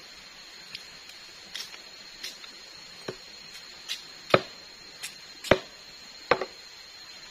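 Machete chopping into a green palm stalk to cut out the palm heart: a few light taps, then four sharp chops in the second half, roughly one a second.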